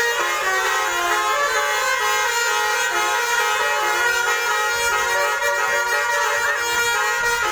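Telolet horn, a set of multi-tone air horns, sounding a continuous tune of steady notes that change pitch every fraction of a second, several tones at once.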